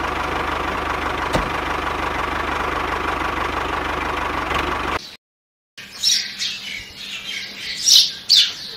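The small motor of a model engine running steadily, driving a miniature rice mill through its belts, with a thin steady whine over a low hum; it stops dead at a cut about five seconds in. After a moment of silence, birds chirp in short, scattered calls.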